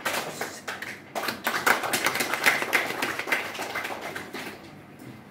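A small audience applauding. The clapping starts suddenly, grows denser about a second in, and dies away near the end.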